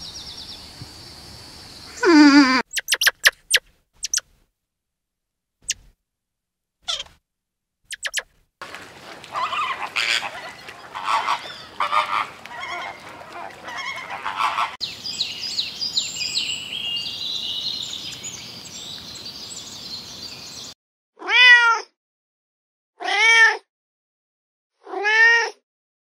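Scattered sharp clicks and short squeaks, then a flock of flamingos honking and gabbling for about twelve seconds, then a kitten meowing four times near the end.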